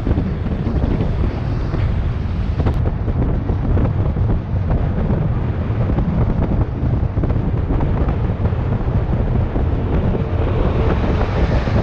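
Loud, steady wind buffeting the microphone of a camera on a bicycle speeding downhill on a highway.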